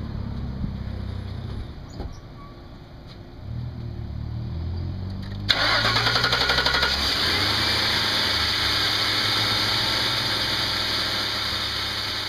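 A 2002 Lincoln Town Car's 4.6-litre V8 starting on its freshly installed spark plugs: about halfway through it cranks briefly, fires and then settles into a steady idle.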